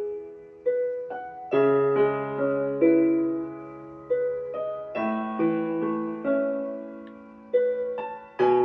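Slow solo piano playing a melancholy melody over chords, each note or chord struck and left to fade, a new one coming about every second.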